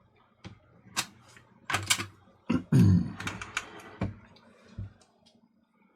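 Plastic clicks and snaps from a Sony CCD-TRV16 8mm camcorder's cassette compartment being handled and pushed shut with its tape sensor covered. This is a test of why the tape won't load. The clicks come irregularly, about eight of them, with the loudest knocks about three seconds in.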